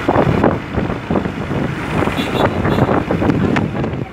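Wind buffeting the microphone in uneven gusts over the rumble of a moving vehicle.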